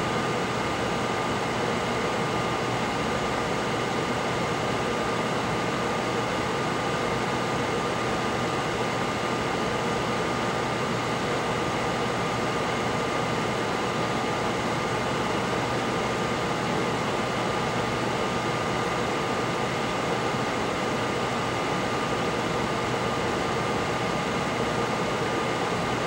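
Steady fan noise, an even hum and hiss with a thin steady whine running through it.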